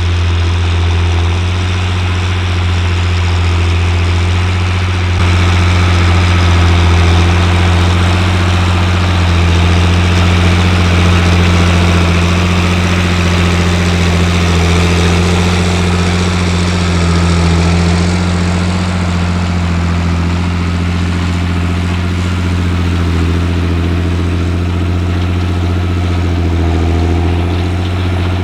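John Deere 8300 tractor's six-cylinder diesel engine running with a steady low drone, getting a little louder about five seconds in.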